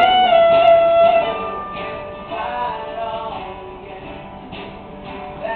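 Live band playing an instrumental passage. A fiddle's long held note ends a descending line in the first second, then the music drops to quieter acoustic guitar strumming.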